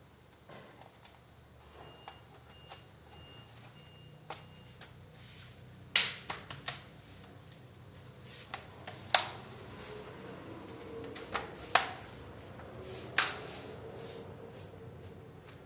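Hard parts of a laptop being handled during a RAM upgrade: a scattered series of sharp clicks and knocks, the loudest about six seconds in and several more later on. A faint run of five short high beeps comes early on.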